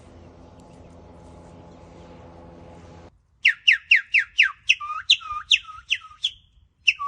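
A low steady hum that cuts off abruptly about three seconds in, then a bird calling: a quick series of loud whistled notes, each sliding downward, about three a second, with a short pause and two more notes near the end.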